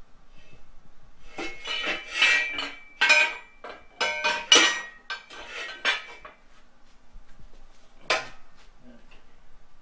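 Metal tools and parts clanking and clinking with a ringing tone as they are set down on a shop cart: a quick run of knocks over about five seconds, then one more clank near the end.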